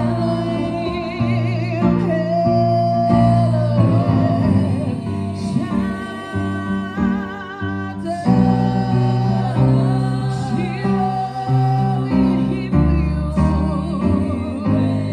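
Live worship song: a lead singer holding notes with vibrato over a band, with a bass guitar playing held low notes that change every second or two.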